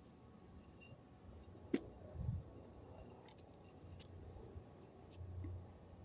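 Faint jangling and clinking of small metal items carried on the body as a man moves, with a sharper click a little under two seconds in. A couple of short low rumbles sit underneath.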